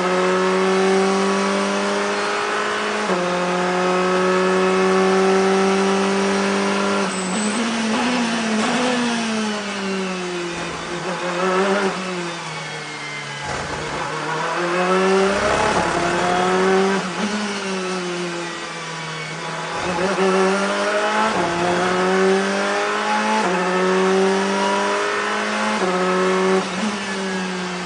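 Ferrari 488 GTE race car's twin-turbo V8 heard from onboard at racing speed: the engine pulls up through the gears with quick upshifts, then falls in pitch through two spells of braking and downshifting in the middle, before accelerating hard through the gears again.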